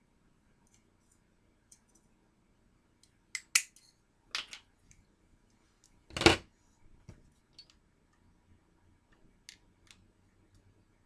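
A few sharp clicks and knocks of hard objects being handled on a tabletop: two quick clicks about a third of the way in, another a second later, and the loudest, a thump, a little after the middle, with faint ticks between.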